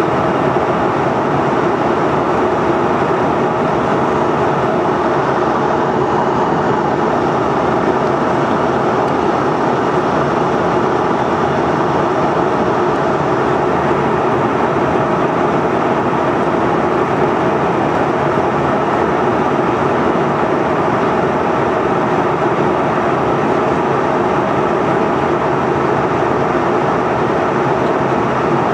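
Steady cabin noise inside a Canadair CRJ700 in cruise-like level flight, the engines' sound and airflow over the fuselage blended into one even rushing noise. The two rear-mounted turbofans keep a constant tone throughout, with no change in power.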